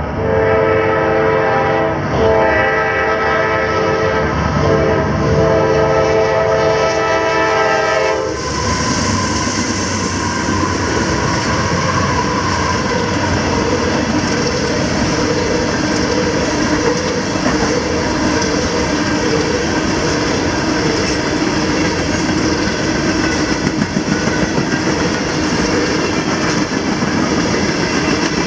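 CSX diesel freight locomotive's horn blowing long blasts as the coal train approaches, broken twice by short gaps and cutting off about eight seconds in. Then the locomotive and the train's cars roll past close by with steady wheel rumble and rail clatter.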